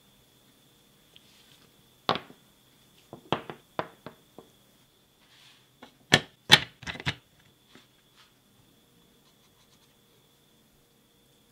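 Cylindrical 18650 lithium-ion cells (Sony VTC6) knocking and clicking against each other and into a plastic battery-pack housing as they are fitted. There are a few sharp knocks about two to four seconds in and a tight cluster of louder clicks about six to seven seconds in.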